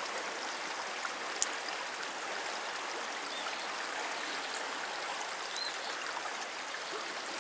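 Fast, swollen river current rushing steadily, an even hiss of moving water. One sharp click about a second and a half in.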